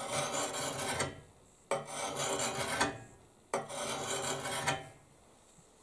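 Hand file sharpening the steel edge of a shovel blade: three long file strokes of about a second each, with short pauses between them.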